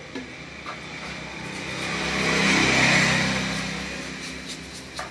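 A motor vehicle's engine passing by, swelling to a peak about halfway through and then fading away.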